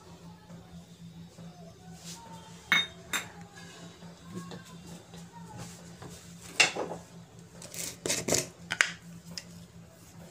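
Stainless-steel bowls and utensils clinking and knocking now and then, with a few light knocks early and a louder cluster from about two-thirds of the way through.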